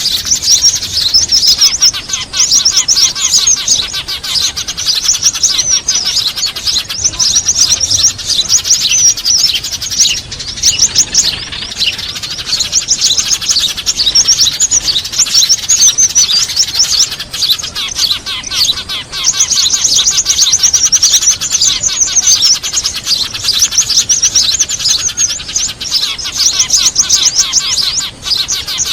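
Dense, continuous chirping and rapid trills from a crowd of small birds, a noisy bird-lure recording that mixes Eurasian tree sparrow calls with other small songbirds, used to draw small birds in for trapping.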